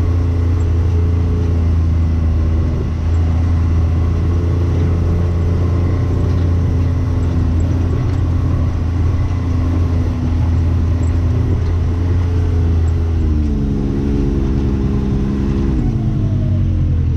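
Can-Am Maverick X3 DS Turbo side-by-side's turbocharged three-cylinder engine running steadily while under way on a trail; its note shifts about three-quarters through and falls toward the end as it slows.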